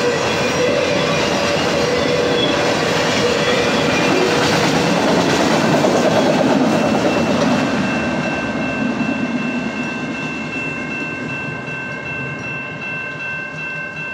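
Freight train of autorack cars rolling past, its wheels rumbling and clattering on the rails with squealing tones over the top. The noise builds to its loudest about halfway through and then fades as the cars move away, while two steady high tones ring on through the second half.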